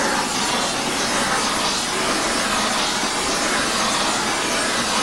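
Two oxy-fuel torch flames hissing steadily as they heat an aluminium Shovelhead cylinder head before a valve seat is fitted.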